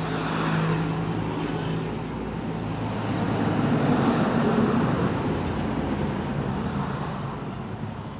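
A road vehicle's engine passing by, growing louder to a peak about four seconds in and then fading away.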